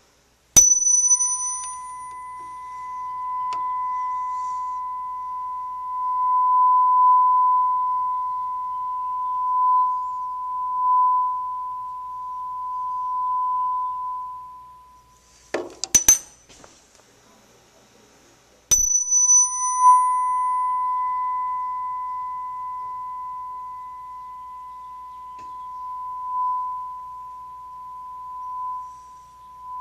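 A 1000 Hz tuning fork struck twice, about half a second in and again about two-thirds through. Each strike gives a short high clang and then a steady ringing 1 kHz tone. The tone swells and fades as it sounds over a resonance tube in water whose length is being changed, growing louder where the air column resonates in a standing wave. A brief clatter of handling comes just past halfway, as the first tone dies away.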